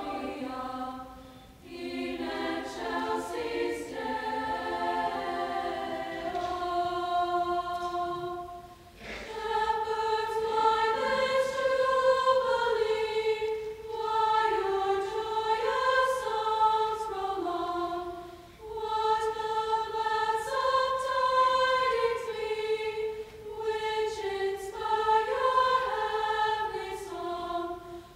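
High school choir singing a Christmas piece in several parts, in long phrases broken by short breathing pauses.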